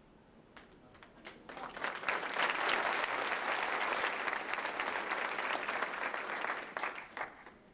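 Audience applauding: a few scattered claps swell quickly into full applause, which holds for several seconds and then dies away to a last few claps.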